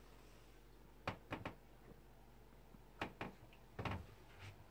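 A few light knocks and clicks from doors or cabinet fittings being handled in a small boat bathroom, coming in small clusters of two or three.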